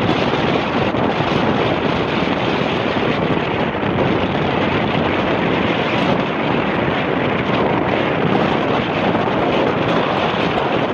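Strong wind blowing across the microphone aboard a sailing boat under sail: a loud, steady rushing noise, with the sea moving past underneath.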